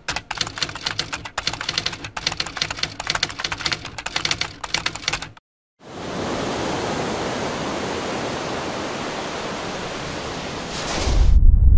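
Rapid typewriter key clatter for about five seconds, then a brief pause and a steady rushing noise. About a second before the end, a loud deep rumble sets in.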